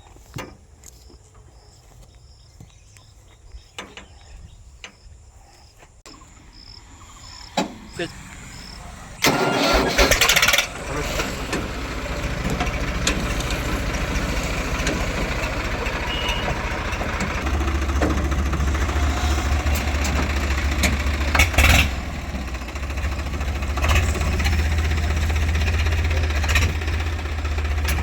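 A farm vehicle's engine starts about nine seconds in, after a quiet stretch with scattered clicks, and then runs steadily, its low hum growing louder partway through.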